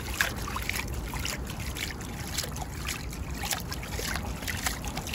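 Seawater splashing and trickling over a black sea bream held in the shallows, irregular splashes as water is moved through its gills to revive it.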